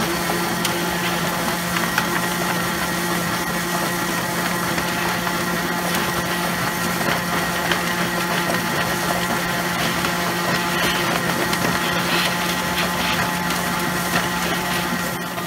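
Drum-style chicken plucker's electric motor spinning its rubber-fingered drum with a steady hum, while a garden hose sprays water into the drum with a constant hiss and scattered light knocks.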